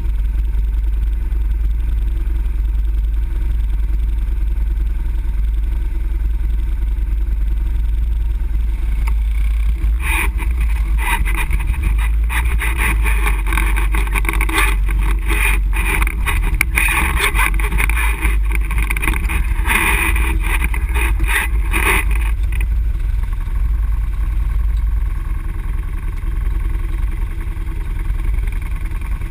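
ATV engine running steadily while riding over a rocky trail. From about ten seconds in to about twenty-two seconds the sound gets brighter and harsher, with many short knocks and rattles on top of the engine.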